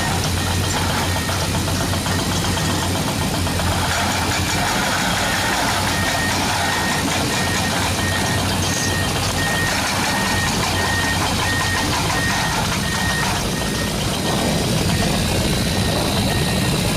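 Remote-control toy construction vehicle running with a steady mechanical drone, with a high electronic beep repeating about twice a second that starts about six seconds in and stops near the end.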